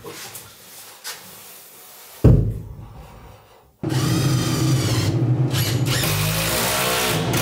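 A single loud knock, then a cordless drill running under load for about three and a half seconds, its pitch wavering and sagging as it drives screws into a plywood mounting board.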